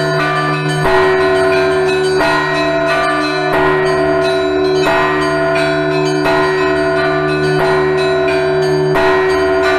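Russian Orthodox church bells ringing a peal: several bells of different pitches struck in a repeating rhythm, with a fresh full stroke roughly every second and a half over the lingering hum of the low bells.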